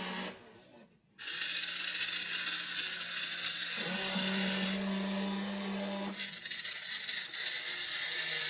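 Small electric motors and gearboxes of a WLtoys RC excavator whirring as it works. The sound drops away briefly just after the start, then runs on with shifts in tone about four and six seconds in as the motors change.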